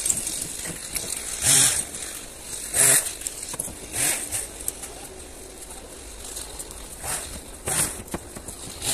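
Dry fallen pine branches being thrown onto an open car trailer: about six short rustling, clattering crashes, a second or more apart.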